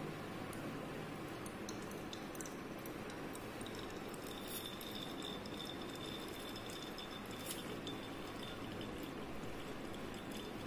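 Neem-infused coconut oil pouring in a thin stream from a steel pot through a strainer into a cup, with a few light clinks over a steady background hiss.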